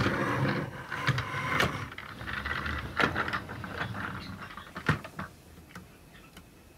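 Small plastic toys being handled and moved about: a rattling, clicking clatter with a few sharper clicks, dying away near the end.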